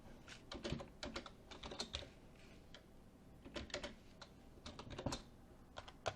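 Faint keystrokes: keys tapped in irregular short runs with brief pauses, as figures are entered on a keyboard.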